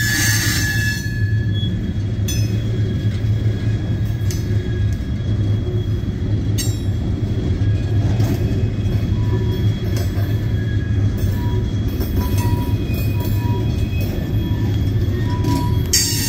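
Loaded Herzog hopper cars of a CSX gravel train rolling past: a steady low rumble of steel wheels on rail, with a few sharp clicks. A high wheel squeal fades out in the first second and comes back right at the end, and faint squeal tones come and go in between.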